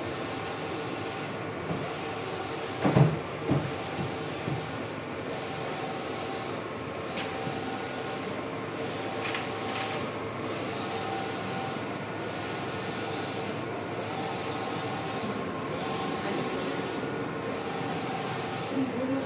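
Large-format inkjet printer running as it prints on adhesive vinyl: a steady whir from the print-head carriage sweeping back and forth, with a pattern that repeats about every second and three quarters. A single sharp knock comes about three seconds in.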